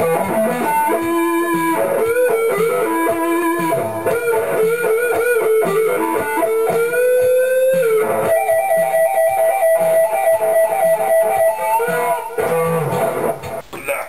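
Stratocaster-style electric guitar playing a melodic lead line with wavering, bent notes and a slow upward slide, then long held notes from about eight seconds in.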